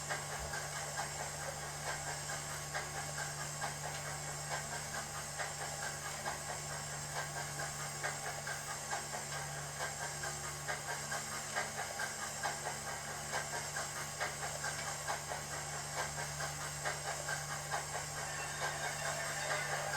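Digital (DCC) sound decoder playing a steam locomotive's running sound through the model's speaker: steady, evenly spaced exhaust chuffs over a constant steam hiss, with a low hum underneath.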